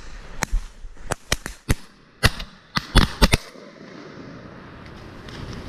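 A volley of shotgun shots from several hunters firing at passing ducks: about ten sharp reports in quick, uneven succession over three and a half seconds, some louder and some fainter.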